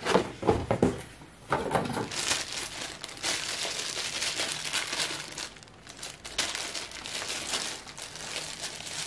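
Plastic packaging crinkling and rustling as a new hand blender is unwrapped and taken out of its box, with a few handling knocks in the first second.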